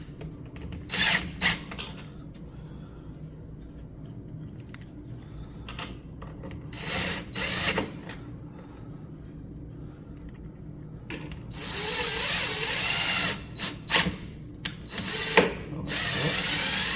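Cordless power driver driving small screws in short bursts: two brief runs about a second in, two more around seven seconds, then longer runs near twelve seconds and at the end, with small clicks and knocks between.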